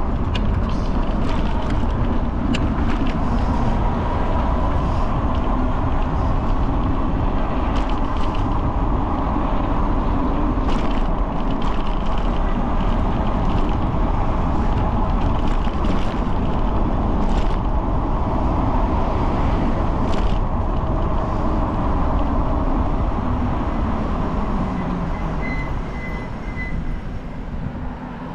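Steady road and engine noise of a moving motor vehicle, with a low hum that drifts slightly in pitch and a few faint clicks. The level dips a little near the end, where a few faint high beeps are heard.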